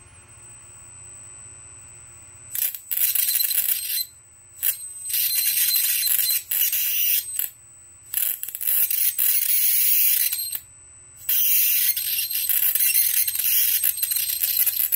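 A flyback transformer driven by a 6DQ6 vacuum tube gives a steady high-pitched whine. About two and a half seconds in, a high-voltage arc is drawn from its output lead and sizzles loudly in four long bursts, each broken off briefly as the arc is pulled away and struck again.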